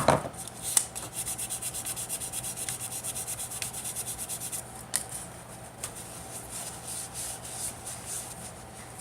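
A fishing rod blank being rubbed down by hand to clean it, in quick back-and-forth strokes about five a second that turn fainter and irregular about halfway through. A knock comes right at the start.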